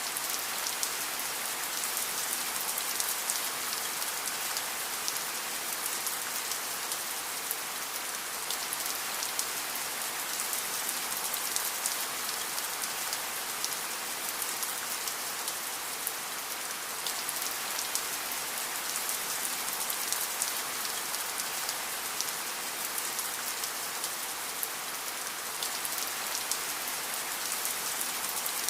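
Steady rain falling, an even hiss with a dense patter of fine drops on a hard surface, unchanging throughout.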